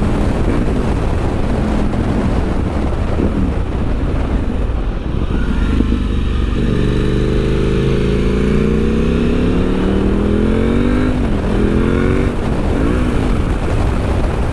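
KTM 890 SMT's parallel-twin engine through a Vandemon titanium exhaust, ridden hard under acceleration. Past the halfway mark the engine note climbs steadily for several seconds, then drops sharply with a gear change, and it dips again briefly near the end.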